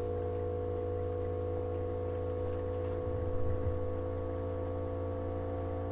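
Steady background hum made of several held tones, with a faint low bump about three seconds in.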